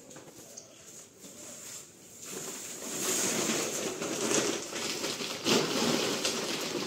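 Plastic rice sack crinkling and rustling as it is handled and twisted shut, growing loud about two seconds in.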